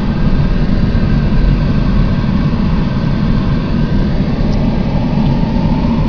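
Steady running noise of a car, engine and road noise heard from inside the cabin.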